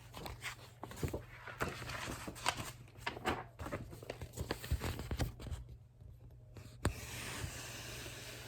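Paper rustling and turning of a picture book's pages, with irregular small clicks and taps, then a single sharper click about seven seconds in followed by a faint steady hiss.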